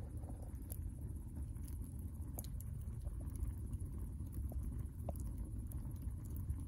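Wood campfire burning, with scattered crackles and pops over a steady low rumble.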